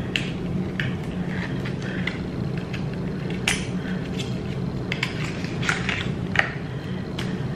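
A small cardboard lipstick box and lipstick tube being handled and opened: scattered light clicks and rustles of the packaging, over a steady low hum.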